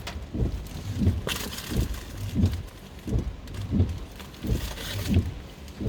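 Footsteps of a person walking, a dull thud about every two-thirds of a second.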